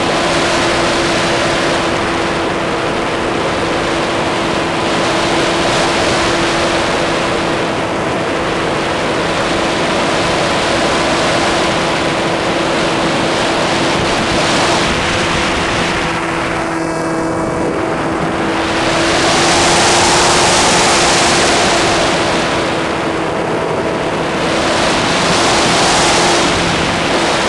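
Brushless electric motor and propeller of an RC plane whining at a steady pitch, heard from a camera on board, under heavy wind rush on the microphone. The rush swells twice, about two-thirds of the way through and again near the end.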